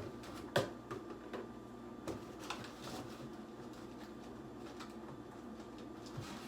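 Scattered light knocks and clicks of things being handled while rummaging for gloves in a kitchen, the sharpest about half a second in, over a steady low hum.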